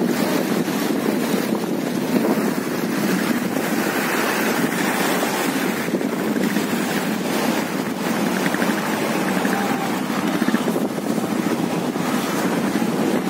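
Steady rush of a mountain stream flowing across the road over stones, an even unbroken roar of running water.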